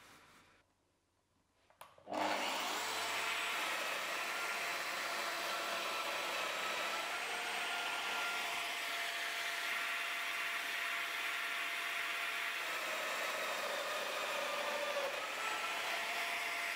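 Festool Domino XL joiner motor starting about two seconds in and then running steadily while cutting mortises into a solid oak block, with a dust extractor running alongside. The pitch shifts slightly now and then as the cutter works.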